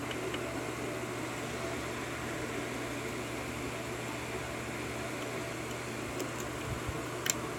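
Steady low electrical hum and hiss of room noise, with a couple of faint short clicks near the end from a pick working the pins of a Wilka pin-tumbler lock.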